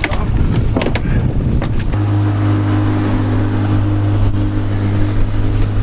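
Wind and water noise with a few knocks, then about two seconds in a boat engine starts to be heard running at a steady, even pitch.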